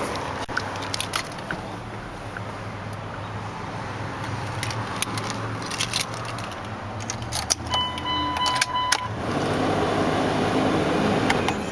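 Cummins 5.9-litre inline-six turbo diesel idling steadily, with scattered clicks and jingles of keys or switches being handled in the cab. About eight seconds in, a short electronic chime sounds for about a second.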